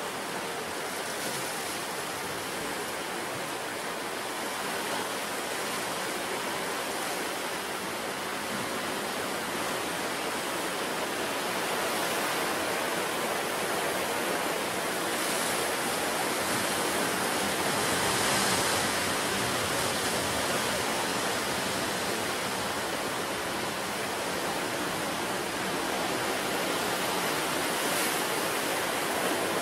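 Ocean surf washing onto the shore in a continuous rushing wash that swells and eases slowly, loudest a little past the middle.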